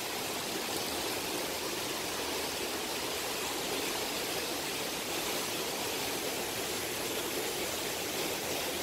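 A shallow, rocky stream rushing over and between boulders: a steady, even rush of water.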